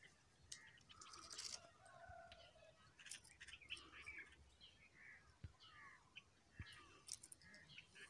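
Faint songbirds chirping and calling in the trees: a scatter of short whistled notes and chirps, some sliding downward, with a run of repeated notes in the second half.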